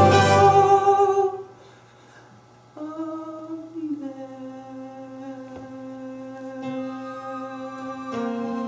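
A held sung note with piano accompaniment ends about a second in. After a short lull, soft sustained instrumental notes begin: one note slides down and then holds steady, and a new chord comes in near the end.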